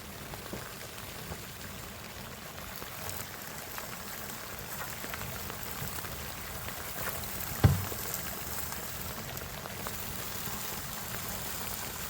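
Steady rain falling on surfaces, with a single dull knock about seven and a half seconds in.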